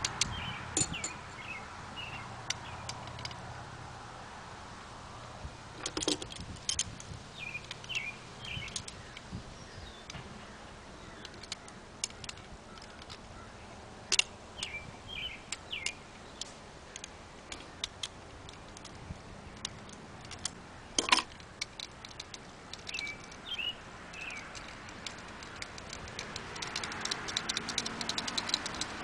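Small metal parts clicking and clinking as a bolt and nut are worked loose with pliers from a knife sharpener's steel clamp, in scattered sharp ticks, with birds chirping now and then in the background.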